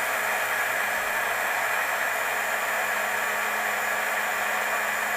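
Small personal blender running steadily, its motor whirring as it blends frozen fruit, spinach and water into a smoothie, nearly done.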